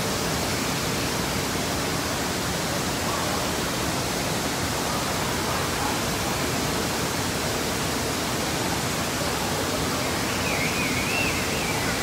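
Steady rushing of water in an indoor water park's lazy river. A faint high wavering sound comes in near the end.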